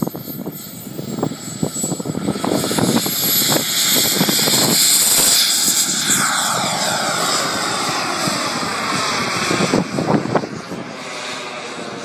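Jet Central Rhino model gas turbine of a Comp ARF Typhoon RC jet at full power on its take-off run. A high whine climbs in pitch over the first few seconds and is loudest about five seconds in as the jet lifts off. The sound then sweeps and slowly fades as it climbs away.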